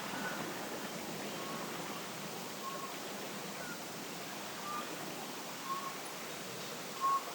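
Steady wind noise outdoors at night, with an animal's short high-pitched chirps repeating about once a second.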